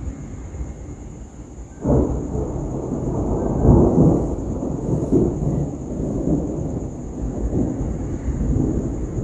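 Thunder: a low rumble breaks in suddenly about two seconds in, swells louder a couple of seconds later and keeps rolling on.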